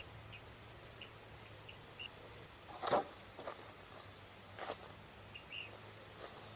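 A few crunching footsteps through dry grass and rock, the loudest about three seconds in, over faint short high chirps every second or so and a low steady hum.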